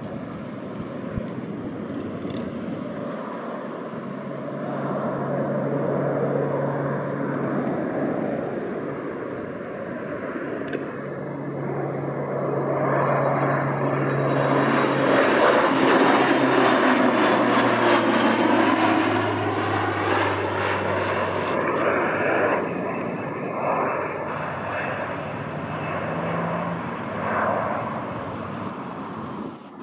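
Airliner passing by overhead: the engine sound builds, is loudest about halfway through with its pitch dropping as it passes, then fades.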